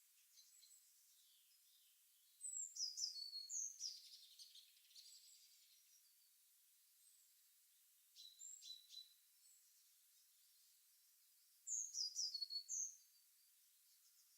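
Bird song: a bird sings a quick, high phrase of chirps and falling notes about two seconds in, repeats the same phrase about nine seconds later, and gives a quieter burst of chirps in between, over a faint steady hiss.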